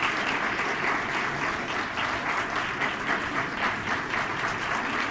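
An audience applauding steadily: many people clapping at once, some standing.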